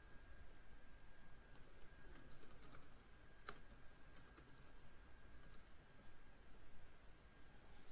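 Faint typing on a computer keyboard: a few short runs of keystrokes, with a faint steady high-pitched whine underneath.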